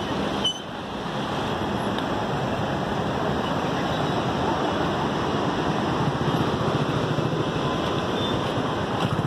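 Steady roar of floodwater pouring through the open spillway gates of Srisailam Dam. A vehicle engine idling joins in during the second half.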